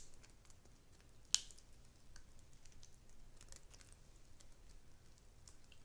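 Thick melted cheese sauce being poured from a small saucepan over crispy fried chicken in a skillet: faint scattered soft clicks and crackles, with one sharper click about a second and a half in.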